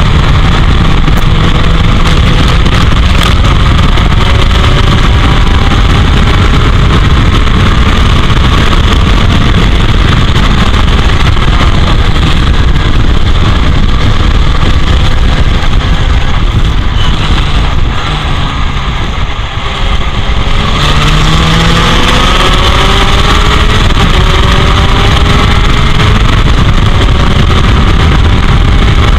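Heavy wind buffeting on the camera of an open-cockpit Royale S2 Sports 2000 race car at racing speed, with the engine note underneath rising in steps as the car accelerates through the gears. About two-thirds of the way in, the sound drops briefly as the driver lifts off. The engine then climbs again through several gears.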